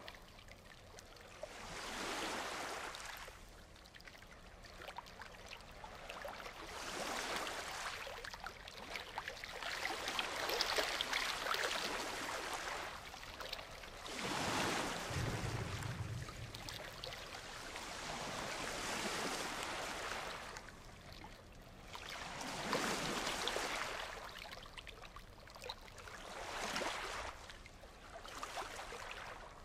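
Ocean waves breaking and washing up the shore, the surf swelling and ebbing every few seconds. A brief low rumble comes about halfway through.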